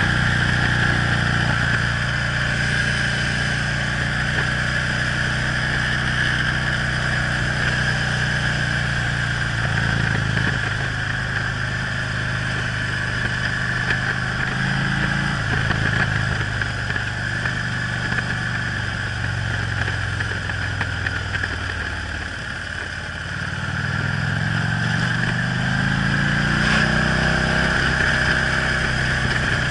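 Harley-Davidson touring motorcycle's V-twin engine running on the move, its note shifting a couple of times. About two-thirds of the way through it drops off as the throttle eases, then climbs back up in pitch as the bike accelerates, over a steady rush of wind.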